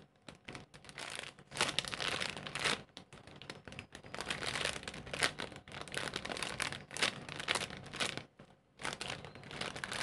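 Clear plastic bag crinkling in irregular bursts as a squishy toy is squeezed and turned inside it.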